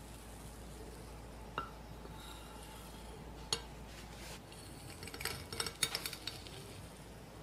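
Metal kitchen knife and cake server clinking and scraping against a ceramic plate while a soft cheesecake is cut and a slice is lifted. There is a sharp click about a second and a half in, another at about three and a half seconds, then a quick run of clinks and scrapes a little after five seconds as the server slides under the slice.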